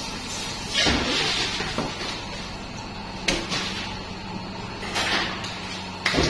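Fish-cutting knife and hands working a whole tuna on a cutting board: a few short scraping and knocking noises, about a second in, a sharper one past the middle, and two more near the end, over a steady low hum.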